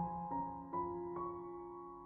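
Soft background piano music: a few notes struck in the first second or so, then held and slowly fading.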